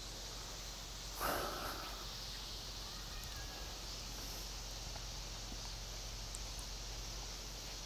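A man's short breathy sigh about a second in, then faint steady outdoor background noise with a low hum.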